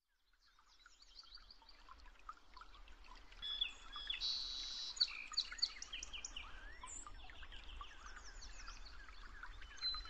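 Several birds chirping and singing, a dense mix of short high chirps and whistles that fades in from silence over the first few seconds.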